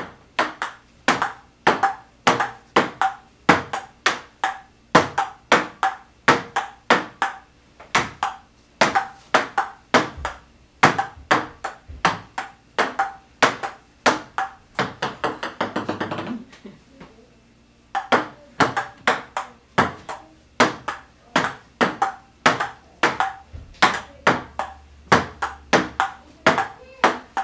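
Table-tennis rally: a ping-pong ball clicking off paddles and table in a quick, steady run of sharp clicks, about two to three a second. About fifteen seconds in, a ball bounces to rest in ever-faster bounces, and after a short pause the clicking of play starts again.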